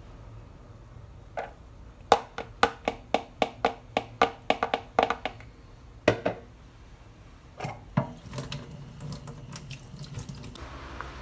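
Kitchen-sink sounds: a quick run of hard knocks and clinks, about four a second, for about three seconds, then a few scattered clinks, with a tap starting to run near the end.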